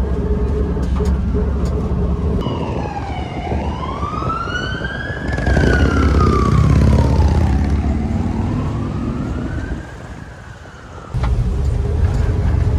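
Air-cooled flat-four of a 1964 VW Type 2 pickup running under way, with an emergency vehicle's siren wailing in slow rising and falling sweeps from about two seconds in until near the end.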